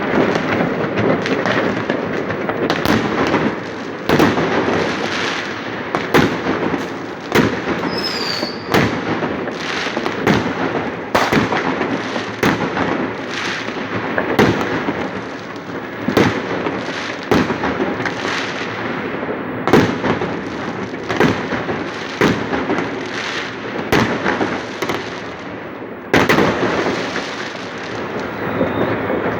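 Many New Year fireworks going off at once: a continuous crackle and rumble of bursts, with sharper bangs about every second, and a short falling whistle about eight seconds in.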